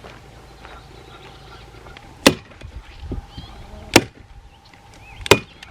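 Staple gun driving staples to put up paper targets: three sharp snaps, spaced about a second and a half apart.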